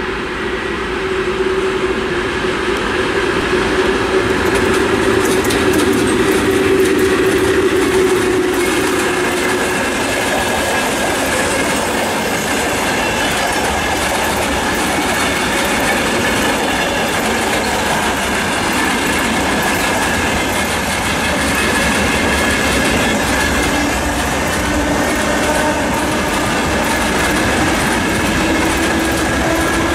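A VL11 DC electric locomotive passing close with a freight train, with a steady hum that fades after about nine seconds as it goes by. Then a long string of tank cars and open wagons rolls past, wheels beating a continuous clickety-clack over the rail joints with a thin squeal from the wheels.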